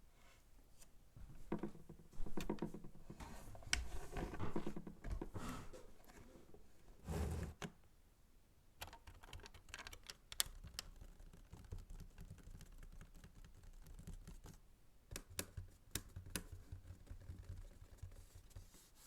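Computer keyboard keys tapped slowly and irregularly, in separate sharp clicks. Rustling and handling sounds are mixed in during the first several seconds.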